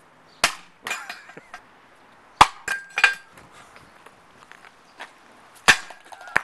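A brick smashing down onto a surface-mount antenna on a cast-iron drain grate: sharp cracking impacts with broken pieces clattering on the iron and asphalt. The loudest hits come about half a second in, about two and a half seconds in and just before the end.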